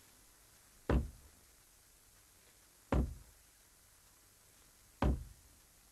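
Three slow, single knocks of a white-gloved fist on a wooden door, about two seconds apart: a Masonic 'report' at the lodge door, the ritual knocks announcing a candidate.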